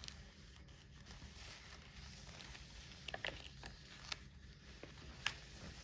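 Faint handling noise from a soft paper cross-stitch pattern being held up and moved: a few light taps and rustles, mostly in the second half.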